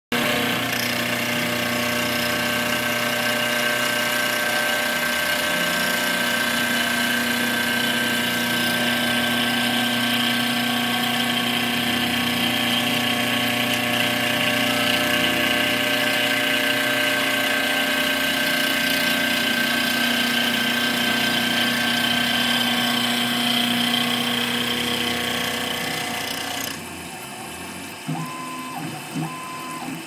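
Tormach CNC milling machine cutting the steel handle of a Howa rifle bolt: a steady spindle whine with a grinding cutting noise. Near the end the cutting sound drops away to a quieter hum.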